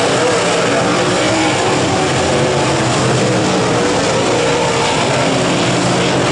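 Engines of a pack of dirt late model race cars running hard around a dirt oval, a loud, steady overlapping drone whose pitches waver up and down as the cars pass.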